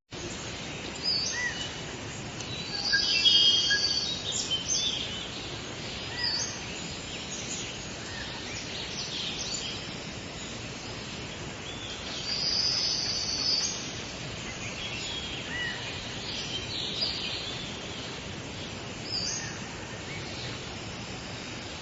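Wild birds chirping and calling in scattered clusters of short, high notes over a steady outdoor background hiss.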